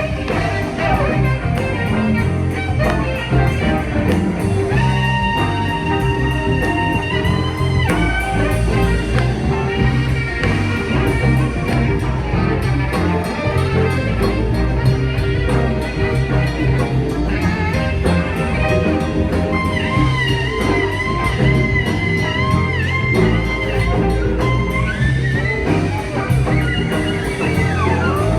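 Band music with guitar and drums: a steady beat under a lead line of long held notes that waver in pitch.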